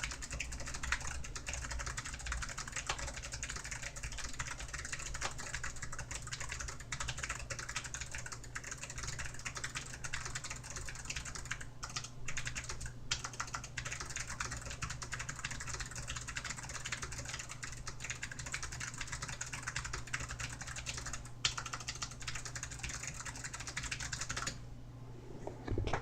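Continuous fast typing on a DAREU EK820 low-profile mechanical keyboard with Kailh low-profile clicky switches: a dense run of key clicks with a few brief pauses, stopping shortly before the end.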